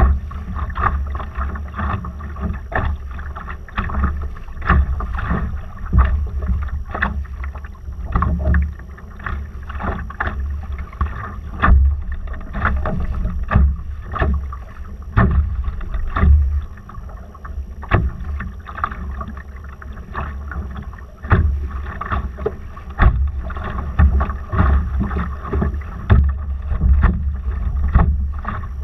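Water slapping and splashing against a Laser dinghy's hull while under sail, in many irregular sharp slaps, over a steady low rumble of wind buffeting the microphone.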